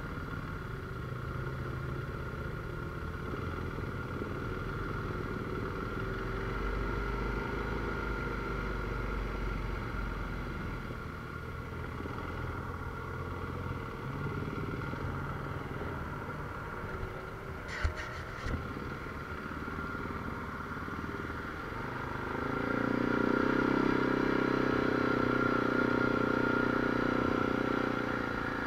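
ATV engine running under way on a dirt trail, its pitch rising and falling with the throttle. Two sharp knocks come about 18 seconds in, and from about 22 seconds the engine runs louder and higher until near the end.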